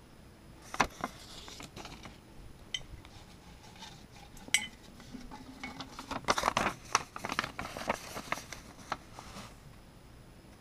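A glass jar being handled and folded paper notes taken out of it and unfolded: a few sharp clinks, then a busy stretch of clinking and paper crinkling from about six to nine and a half seconds in.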